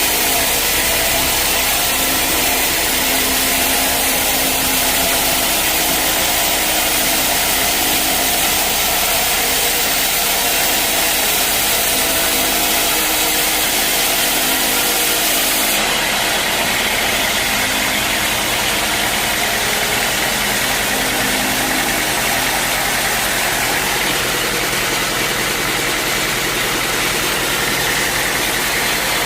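Sawmill machinery running steadily with a continuous engine drone. The sound changes abruptly about sixteen seconds in.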